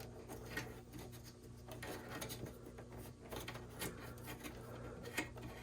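Light rubbing and scattered small clicks of power supply cables being pushed and tucked into a Synology DS1515+ NAS chassis, over a faint steady hum.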